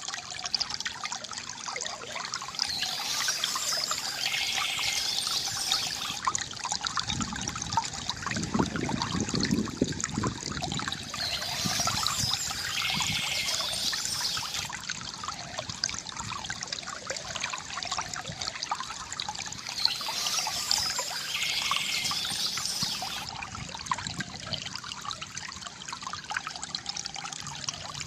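Stream water trickling and pouring steadily, with a deeper gurgle for a few seconds near the middle. A bird's song phrase comes in about every eight to nine seconds, three times.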